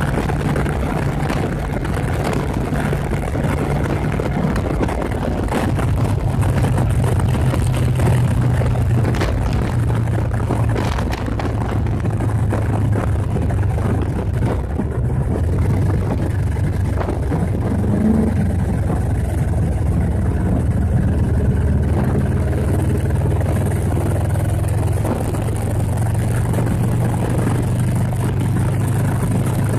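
1986 Kawasaki 454 LTD's parallel-twin engine running steadily at freeway speed, over wind and road noise. Its pitch drops a little about six seconds in, then holds.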